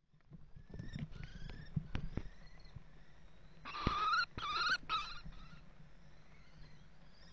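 Common kestrels calling: three loud, wavering, harsh calls close together about four seconds in, preceded by a run of knocks and scrapes, with faint chirping behind.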